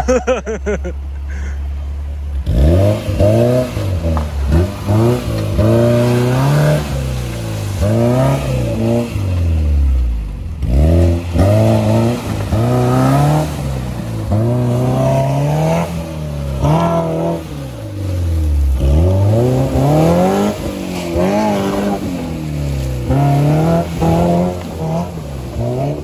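Maruti Suzuki Gypsy's petrol engine revving up and down over and over, its pitch climbing and dropping every second or two as the throttle is worked. A steady low hum comes before the revving starts, about two and a half seconds in.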